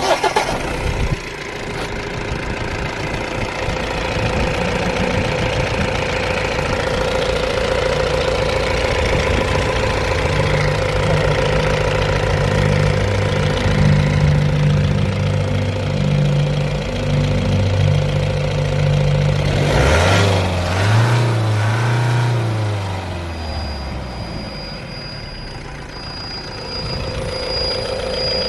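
Mahindra Bolero Pik-Up BS6 engine cranked and catching, then running steadily, revved up and back down about twenty seconds in. Near the end a high-pitched electronic beep starts and repeats over the engine: the after-start warning beep that is the fault being shown.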